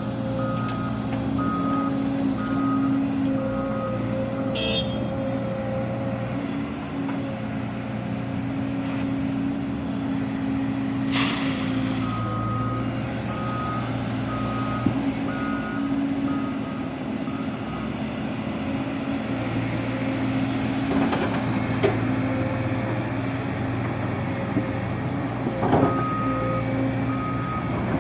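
Diesel engine of a heavy roadworks machine running steadily, its reversing alarm beeping in spells of evenly spaced beeps, about one a second, at the start, in the middle and near the end. A few sharp metallic knocks come in between.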